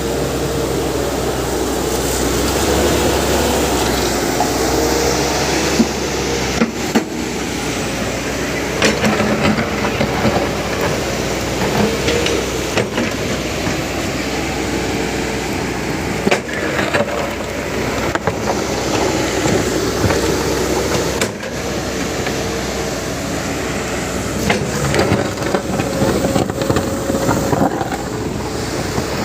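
Cat 321B hydraulic excavator working: the diesel engine and hydraulics run steadily under load, the pitch wavering, with scattered sharp metallic knocks and clanks.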